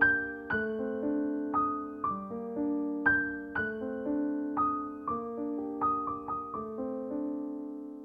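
Background music: a slow, gentle piano melody, each note struck about every half second and left to fade.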